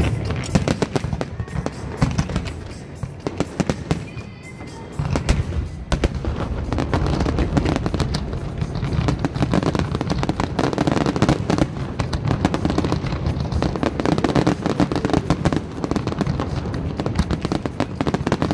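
Aerial fireworks display: a dense barrage of shells bursting in rapid, overlapping bangs and crackles. It eases briefly around four seconds in, then builds back into a nonstop volley.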